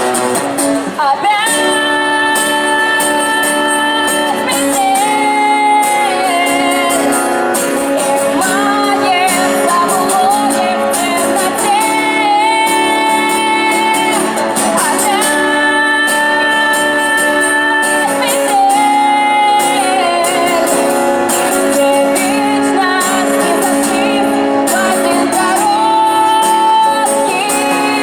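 A singer's voice over acoustic guitar, performing a Russian pop song, with long held notes that waver slightly in pitch.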